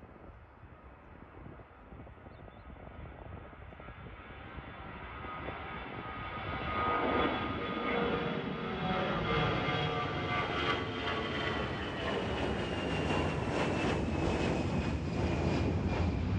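Engines of a twin-engine Airbus A320-family jet airliner at takeoff thrust, climbing out after liftoff. The sound grows steadily louder as the jet comes overhead, with a fan whine that slowly drops in pitch over a deep rumble.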